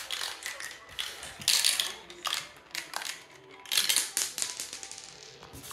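Balls of a VTech marble run rattling and clacking as they roll down the plastic tracks and spirals and drop into the catch bowl: a dense run of irregular clicks that thins out near the end.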